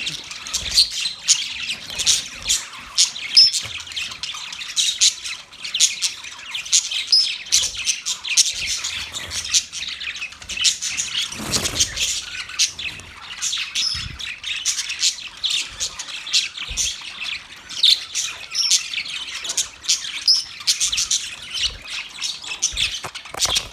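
Budgerigars chattering and chirping without pause, a dense stream of rapid high calls with sharper squawks here and there.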